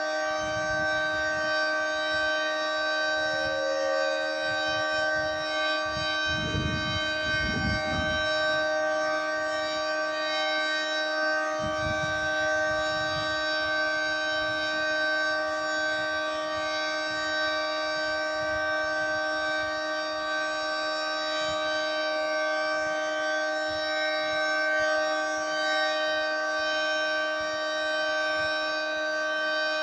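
Federal Signal 3T22 three-tone outdoor warning siren sounding a steady, high-pitched chord with no rise and fall, as in the Alert signal. A brief low rumble comes in about six to eight seconds in.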